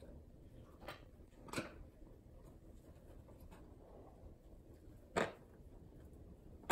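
A few soft taps and knocks from a cat playing with a small rubber balloon on wooden floorboards, the loudest about five seconds in.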